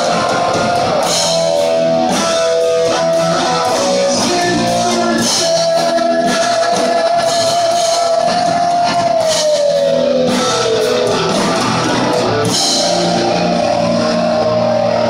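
Heavy metal band playing live: electric guitar over a drum kit, heard from within the crowd. Near the middle a long held note slides down in pitch.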